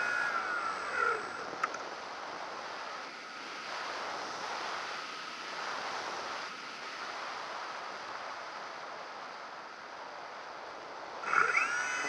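Airflow rushing past a model aircraft's onboard camera as it glides with the propeller motor throttled back; the motor's whine falls away about a second in. Near the end the motor spins up again with a sharply rising whine.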